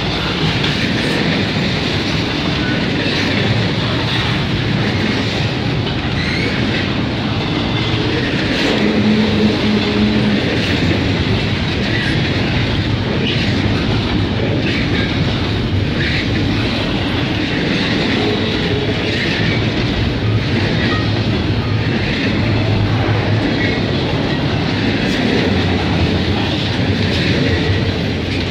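CN intermodal freight train's double-stack container well cars rolling past: a steady rumble with wheels clicking over rail joints and a short low tone about nine seconds in.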